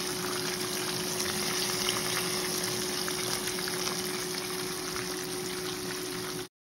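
Breaded catfish fillets sizzling in hot oil in a frying pan: a steady crackling hiss, with a faint steady hum beneath it. It cuts off suddenly near the end.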